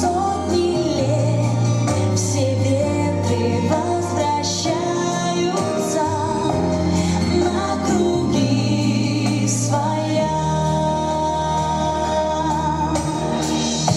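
A song: a sung melody with vibrato over instrumental accompaniment with held bass notes that change every couple of seconds.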